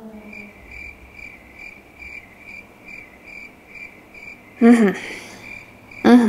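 Cricket chirping, an evenly spaced chirp about two to three times a second, the comic 'crickets' effect for an awkward silence. Two short, loud voice sounds break in about four and a half seconds in and again near the end.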